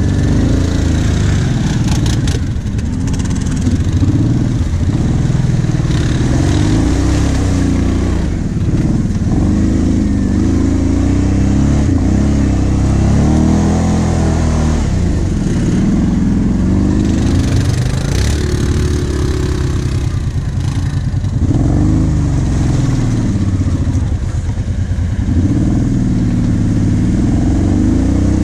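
V-twin ATV engine heard from on board, revving up and down over and over as the quad works through mud and climbs a dirt track, its pitch rising and falling every second or two.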